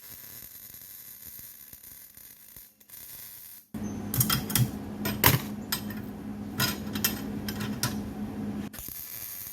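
Faint steady hiss, then about three and a half seconds in a power tool's motor starts up with a steady hum and irregular sharp metallic clicks and rattles, cutting off abruptly near the end.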